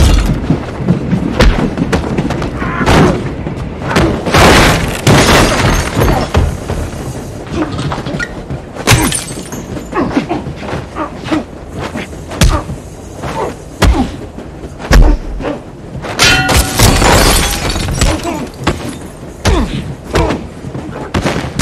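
Fistfight sound effects: repeated punches and heavy body thuds against walls and fittings, with glass and furniture shattering and breaking in crashes around four to six seconds in and again around sixteen to eighteen seconds in.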